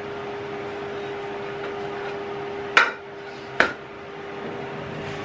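Metal baking tray being handled in a kitchen: two sharp clanks a little under a second apart, over a steady hum.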